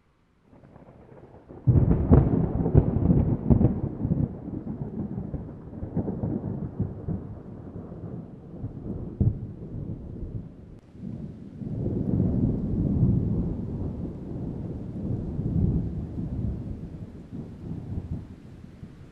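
Thunder: a sudden crackling clap about two seconds in that rolls on and fades over several seconds, then a second long low rumble that swells and dies away in the latter half.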